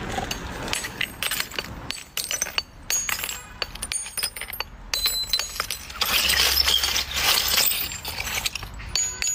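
Chunks of ice being chipped and scraped with a blade: many sharp clinks and cracks, with a denser stretch of crunching partway through.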